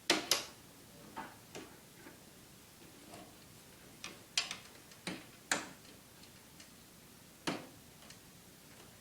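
Sharp clicks and taps, several in close pairs, from the securing clips being fitted onto the MiniPlane paramotor cage's frame poles.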